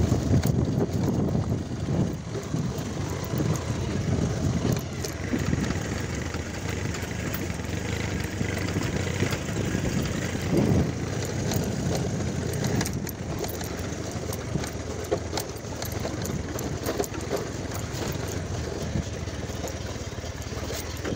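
Motorcycle engines running as the bikes ride over a rough, stony dirt track, with scattered knocks and rattles as the bike jolts over the stones. The engine note rises briefly about halfway through.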